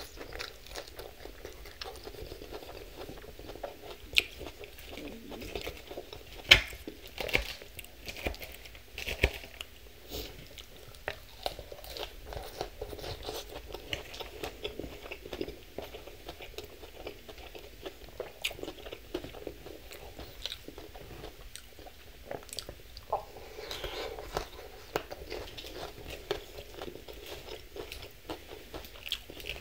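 Chewing and crunching mouthfuls of Thai sesame chicken salad, lettuce and crispy strips, with a steady run of crisp crunches and wet mouth sounds. The sharpest crunch comes about six and a half seconds in.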